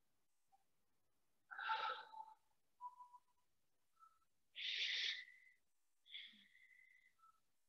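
Faint breathing of a person holding a yoga pose: two breaths about three seconds apart, each under a second long, the second carrying a thin whistling tone.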